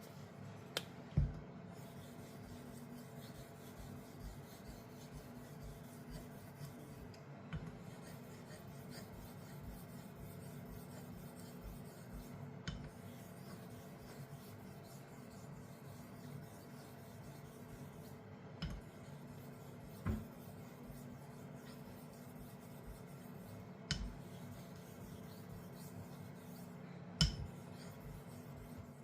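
Straight razor being honed on a slurried Japanese natural whetstone (a convex Shiro Suita): steady soft rubbing of the blade over the stone, with sharp clicks every few seconds as the razor is flipped and touches the stone, about seven in all.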